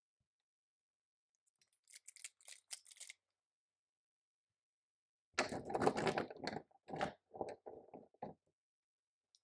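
Typing on a computer keyboard: a brief run of light keystrokes about two seconds in, then a louder, denser run of strokes from about five and a half seconds to eight.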